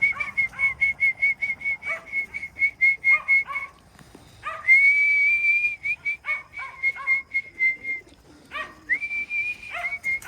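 A person whistling to call homing pigeons back into the loft: a rapid run of short whistle notes at one pitch, about four a second, then a long held note about four seconds in, more short notes, and another held note near the end.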